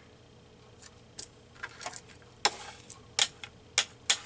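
Paper cut-outs and craft materials handled on a tabletop: a run of about eight sharp clicks and taps, some followed by brief paper rustling.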